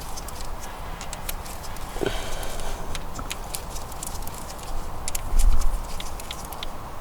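Irregular metallic clicks and clinks of a wrench working the camshaft bearing-cap bolts on a Skoda Octavia 1.8 turbo cylinder head as they are loosened a little at a time. There is a low thump about five seconds in.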